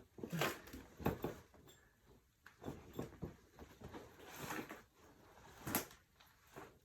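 Person moving about in a rooftop tent: a scatter of soft, irregular knocks and rustles, with a sharper knock near the end.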